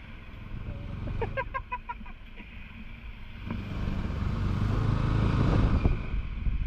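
Motorcycle engine running under way, with wind noise on the microphone. About a second in, a horn sounds a quick run of five or six short beeps, and from about halfway on the engine and wind grow louder.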